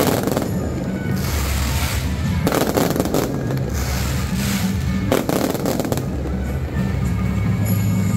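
Aerial fireworks going off in quick succession, with several surges of bursting and crackling, over loud music with a steady bass.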